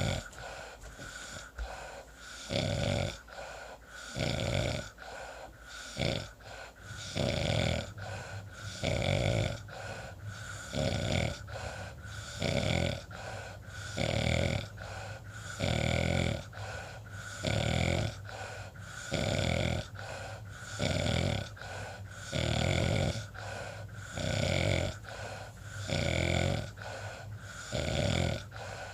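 Snoring in a steady rhythm, a loud rasping snore about every two seconds.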